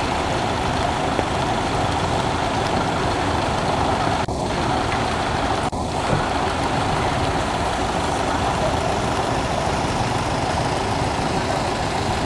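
Steady hiss of rain falling on stone and the water of a moat, with a low rumble underneath; the sound dips briefly twice, around four and six seconds in.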